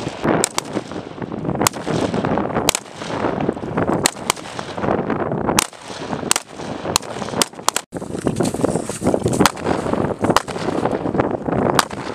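5.56 mm military rifles fired as single shots at an uneven pace of roughly one every half-second to second, about fifteen sharp cracks in all, over a steady noisy background.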